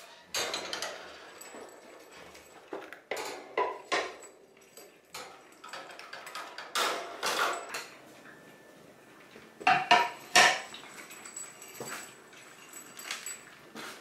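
Cats meowing to beg for food, with a few clatters of a food bowl being handled and set into its stand; the loudest clatters come about ten seconds in.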